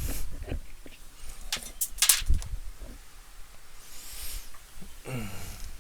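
Clicks, knocks and rustling from handling a power cable and parts on a workbench, with the loudest knock about two seconds in.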